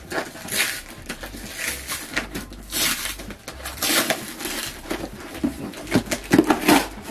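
Packing tape being peeled off a cardboard parcel and the cardboard flaps torn open by hand: a series of short ripping and scraping noises, with a louder burst of crackling near the end.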